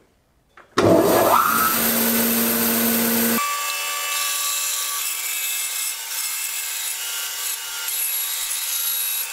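Harvey Ambassador C14 bandsaw with its stock 3/4-inch blade resawing a wooden board on edge. The sound comes on suddenly about a second in, with a rising whine. It changes abruptly about three seconds in to a steady hiss of the cut with a few fixed tones.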